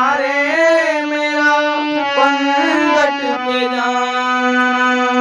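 Harmonium playing a bhajan melody over a held low note, with a voice singing along in the first few seconds.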